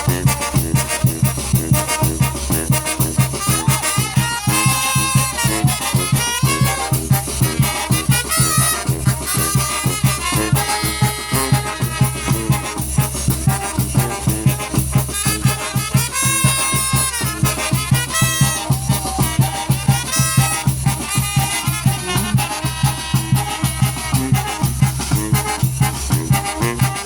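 Live brass banda playing: brass melody lines over a steady beat and a low bass line.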